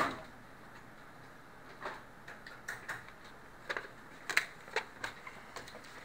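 Irregular light clicks and taps of small hard objects being handled and set down on a desk: a plastic light switch plate and a dial caliper.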